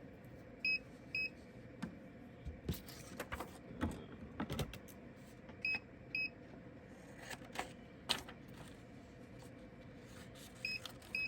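Electronic double beeps from the mini heat press's control unit, a pair of short high beeps repeating about every five seconds, three times. Light clicks and handling knocks come in between.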